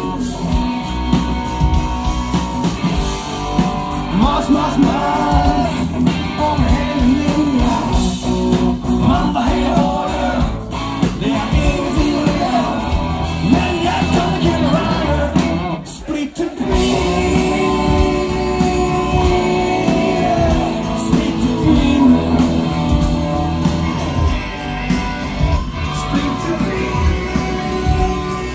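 Live rock band playing amplified: lead vocals over electric guitars, bass and drums, with a brief break in the music about halfway through.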